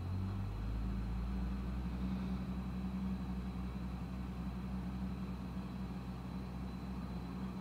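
Small tractor with a snowblower running steadily while blowing snow: a low, even engine hum.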